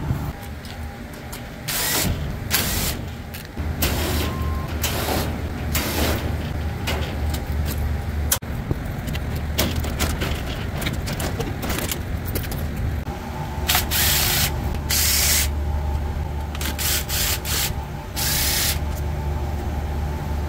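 Steady low drone of running rooftop refrigeration equipment, broken by a dozen or so short rushes of noise.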